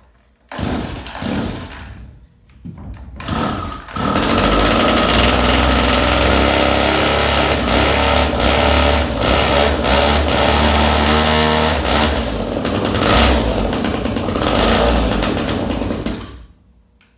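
Echo 290 EVL two-stroke chainsaw being pull-started twice, catching on about the second pull, then running steadily for about twelve seconds before cutting off suddenly. The carburetor is freshly cleaned, and the owner says the clutch is bound up.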